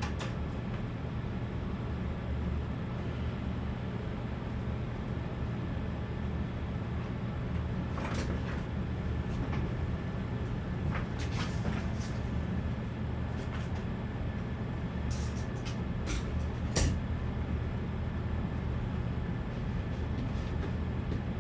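Steady low machine hum, with a few light clicks and taps scattered through it.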